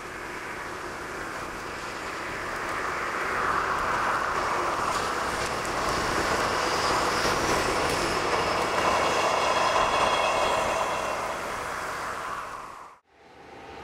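JR Freight EH500 electric locomotive and a Shiki heavy-load freight car passing close by: a steady rumble of wheels on rail that builds to its loudest in the middle, with light clicks and a faint high ringing from the wheels. It cuts off abruptly about 13 seconds in.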